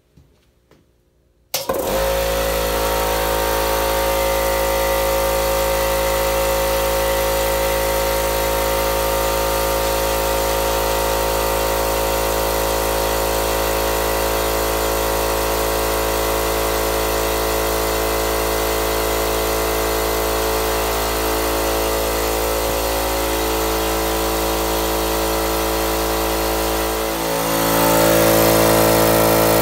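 Campbell Hausfeld 13-gallon oil-lubricated air compressor starting up suddenly about a second and a half in, then running steadily: its first start-up, a break-in run with the tank drain valve open. It gets louder for the last couple of seconds.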